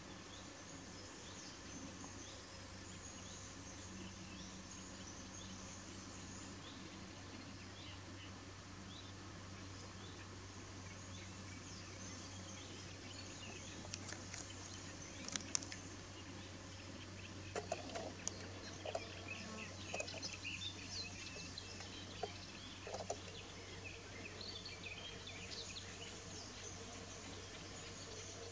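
Faint outdoor background of distant small birds chirping over a low steady hum, with a scatter of short, sharper chirps and clicks in the second half.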